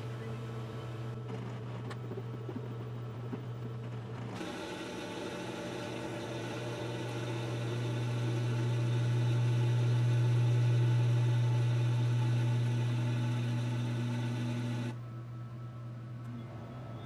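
LG top-load washing machine going into its spin: a steady motor hum that grows louder to a peak about ten seconds in, then eases. A rushing noise of water joins about four seconds in and cuts off suddenly near the end.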